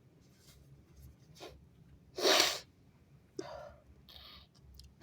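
A person sneezing: faint breaths, then one loud sneeze a little over two seconds in, followed about a second later by a shorter, quieter burst and a brief breathy hiss, with another sneeze starting right at the end.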